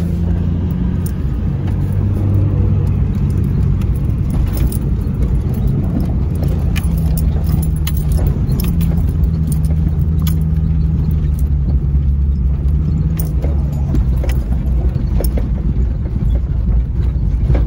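Jeep Cherokee XJ driving over a rough dirt trail, heard from inside the cab: a steady low engine and road drone with scattered clicks and jangling rattles as it bumps along.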